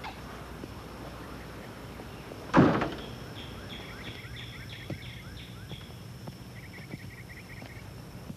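A car door slams shut once, about two and a half seconds in. A bird then chirps repeatedly, about three calls a second, followed by a quicker run of short chirps.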